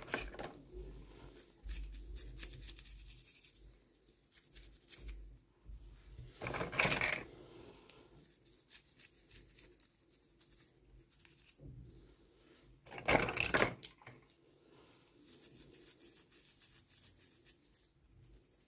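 Hands opening toy packaging: plastic and paper rustling and tearing, with small clicks and taps, and two louder bursts of tearing about seven and thirteen seconds in.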